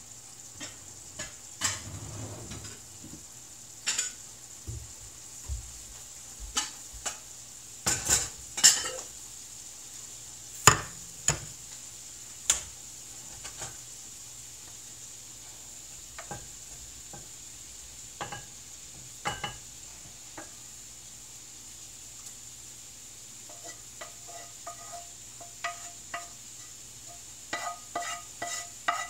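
A utensil knocking and scraping against a nonstick frying pan and a ceramic casserole dish as cooked ground beef is scraped out of the skillet into the dish. Scattered clinks and knocks come first, then a run of quick ringing taps near the end.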